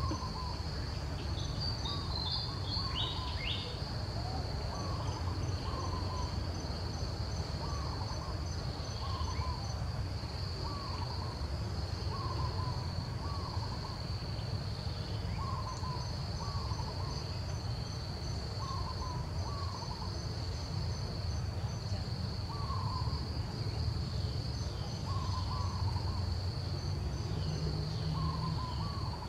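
Outdoor ambience of insects making a steady high-pitched buzz, with a bird repeating a short two-note call every couple of seconds and a low background rumble.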